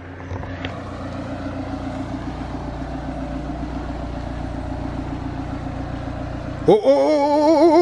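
Mini Countryman's engine running at low revs with a steady hum as the car reverses slowly through a tight gap. Near the end a man's voice lets out a loud, long, wavering vocal sound.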